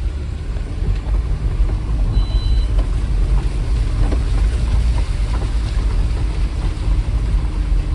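A motor vehicle's engine running with a steady low rumble, and a short high beep about two seconds in.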